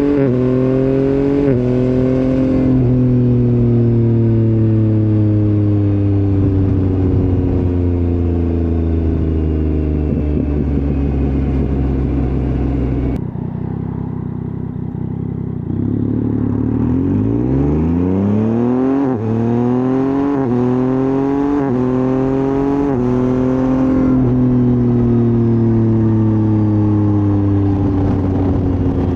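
Motorcycle engine accelerating through the gears, its pitch climbing in each gear and dropping at each shift, then easing off. About halfway through the recording changes, and the engine slows right down, then pulls up through the gears again.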